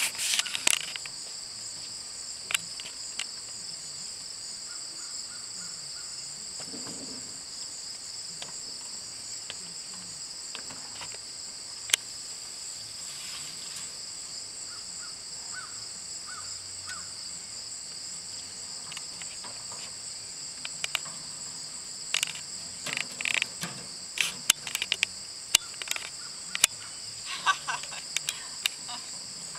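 Steady high-pitched chorus of insects that holds unchanged throughout, with scattered sharp clicks and knocks that come more often over the last several seconds.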